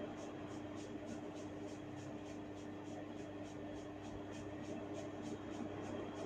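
Faint steady hum with a soft, evenly pulsing hiss about four times a second, with no sharp cracks or clicks.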